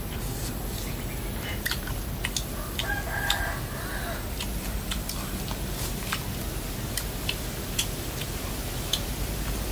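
A rooster crowing once, about three seconds in, for a little over a second, amid scattered sharp clicks and smacks from eating.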